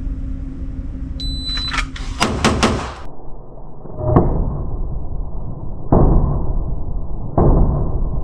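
A shot timer beeps, then a ported and compensated 9mm Glock 19C fires a fast string of about five shots. Later come three duller, longer bangs, a second or more apart.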